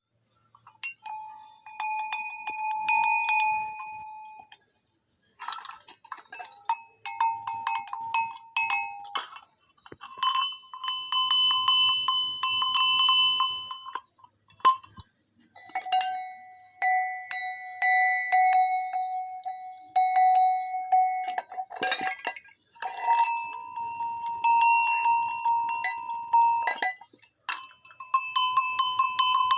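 Livestock neck bells clanking and ringing rapidly, as on moving buffaloes. Dense clapper strikes keep each bell's tone ringing. The bell pitch changes abruptly every few seconds as the sound cuts from one bell to another.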